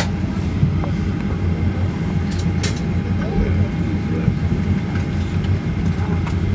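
Steady low hum inside an airliner's cabin, with a couple of sharp clicks about two and a half seconds in.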